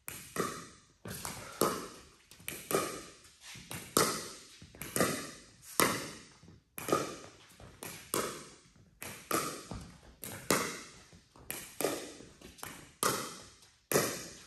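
Pickleball rally: a plastic pickleball popped back and forth off graphite-faced Paddletek Tempest paddles and bouncing on the court, about two sharp hits a second, each with a short ringing echo.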